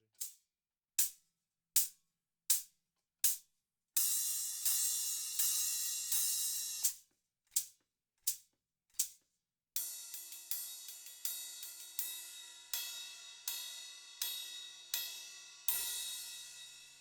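Miked low-volume cymbals being played: a few short, sharp hi-hat strokes, then a sustained cymbal wash, more single strokes, a quick run of ringing cymbal hits, and a final crash with a low drum hit under it that rings out near the end.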